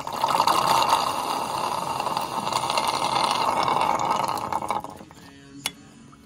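Brake fluid and air being sucked up a hose from a cast-iron master cylinder reservoir: a loud hiss that stops suddenly about five seconds in, followed by a single sharp click.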